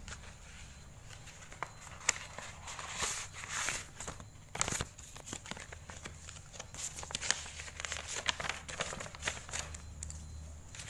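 Plastic mailing pouch and paper packaging being handled and opened by hand, with irregular crinkling, rustling and small sharp crackles.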